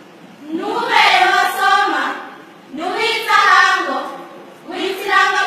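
Group of schoolgirls reciting a poem in unison, in chanted phrases of about two seconds each, three phrases with short breaks between them.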